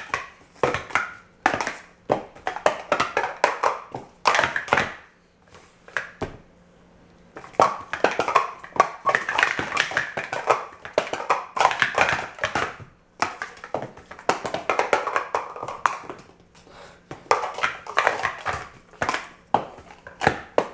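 Blue plastic Speed Stacks sport-stacking cups being stacked and unstacked at speed on a stacking mat: a rapid clatter of cups knocking, sliding and nesting together, with a lull about five to seven seconds in.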